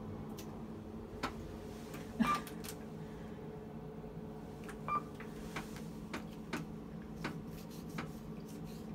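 Key card being swiped and tapped again and again against a lift's card reader: scattered plastic clicks and taps, with two short beeps about two and five seconds in, while the reader does not accept the card. A steady low hum runs underneath.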